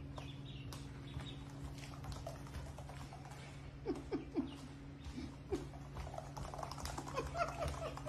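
Ducklings peeping in short chirps, with the light patter of their feet on a hard floor. A steady low hum runs underneath.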